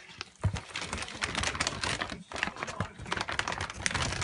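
A large paper bag crinkling and rustling in a dense, rapid crackle as a Norwegian Forest Cat scrambles and pushes around inside it, with a few low thumps. It picks up sharply about half a second in.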